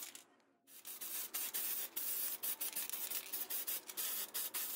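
Orange spray paint hissing steadily onto a small plastic model-car part. It pauses briefly just after the start, then hisses on.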